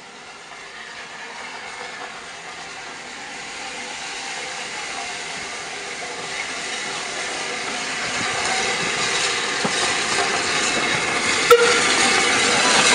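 Metropolitan Railway No. 1 steam tank locomotive and its coaches approaching, with steam hissing and wheels running on the rails, growing steadily louder as the train nears. A single sharp click comes near the end.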